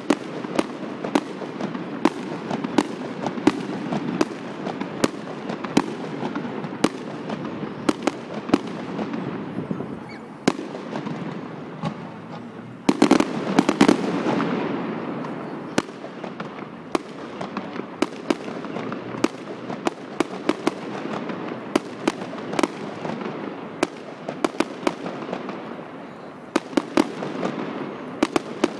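Aerial fireworks going off: a steady run of sharp bangs over continuous crackling from the bursting shells, with a louder, denser cluster of bangs about halfway through.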